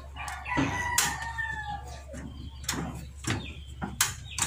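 A rooster crows once in the background, one long call that sags in pitch at its end. Sharp plastic clicks come from the portable butane stove's control knob being pushed on and handled, the loudest near the end.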